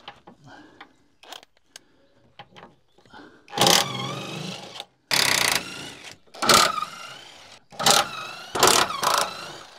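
Impact wrench run in about six short bursts of up to a second each, with a wavering whine, undoing the bolts that hold a Renault Zoe's traction battery. Faint clicks and knocks come in the first few seconds before it.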